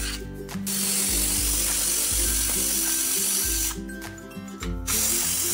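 Stovetop pressure cooker venting steam through its weighted whistle, which signals that it is up to pressure: a loud hiss about three seconds long, then a second one starting near the end.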